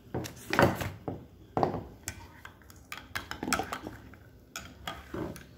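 Dishes and a small glass being handled on a table: a string of irregular clinks and knocks.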